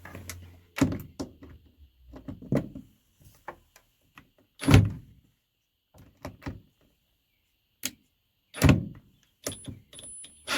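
Irregular knocks, clunks and clatter of interior trim panels being pried loose and handled inside a van. The heaviest thuds come about 5 and 9 seconds in.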